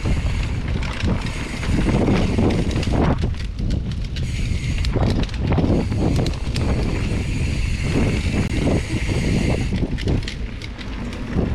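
Mountain bike rolling fast down a dirt trail: wind buffeting the microphone in a steady low rumble, with tyre noise and quick rattles and clicks from the bike over bumps.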